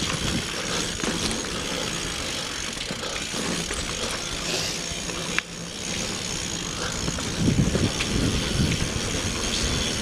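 Single-speed Surly mountain bike being ridden on a dirt trail: a steady rolling and rattling noise, a sharp click about five seconds in, and heavier low rumbling near the end.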